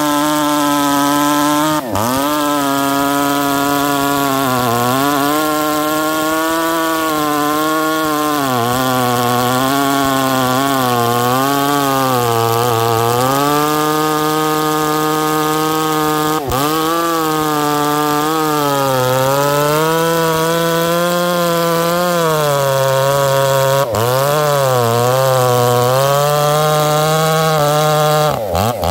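Ported Husqvarna 268 XP two-stroke chainsaw cutting through a large log at full throttle, its engine pitch sagging as the chain loads up in the cut and climbing back again, over and over. The sound breaks off abruptly a few times and turns choppy near the end.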